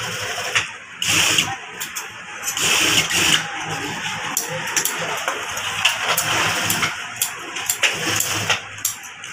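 Industrial sewing machine stitching a leather glove, its motor and needle running in spurts as the pedal is pressed and released, steadier in the middle. A few sharp clicks near the end.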